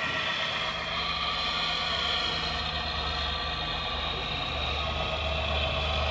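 Radio-controlled hydraulic Volvo tracked excavator model running: a steady mechanical hum and whine, with a low hum growing stronger from about two seconds in.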